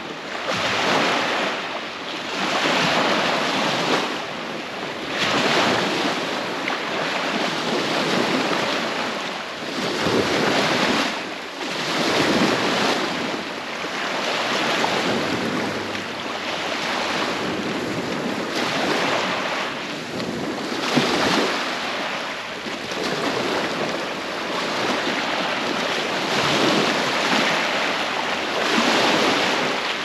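Small bay waves lapping and washing up over sand and low rocks at the water's edge, swelling and fading every couple of seconds.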